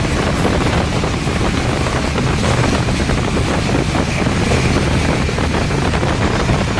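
Steady rumble of a moving train, with wind buffeting the microphone.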